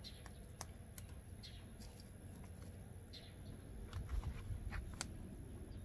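Wood fire burning in a barbecue smoker's firebox, giving off a few sharp pops and crackles over a low rumble that swells about four seconds in.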